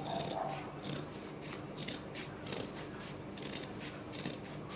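Fabric scissors snipping through stiff doubled buckram, a steady run of short, faint cuts at about three a second.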